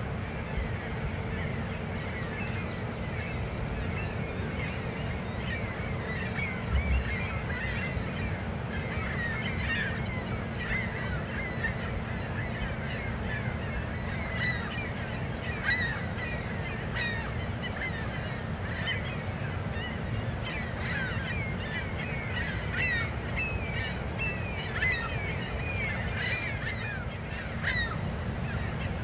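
Many birds calling over and over in short, falling notes, thicker toward the end, over a steady low rumble and a faint hum.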